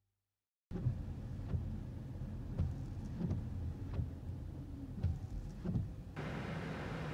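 Inside a car waiting in the rain: a steady low rumble with several irregular soft knocks. A steadier hiss comes in near the end as the windscreen wiper sweeps.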